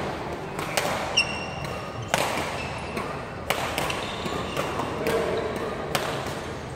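Badminton rackets smacking a shuttlecock back and forth in a rally, a sharp hit about every second and a half, with a short squeak about a second in.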